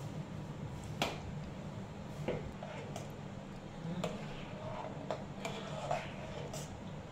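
A spatula knocking and scraping against the metal kadai while rava kesari, loosened by the added sugar, is stirred: several sharp clicks scattered through the seconds, over a low steady hum.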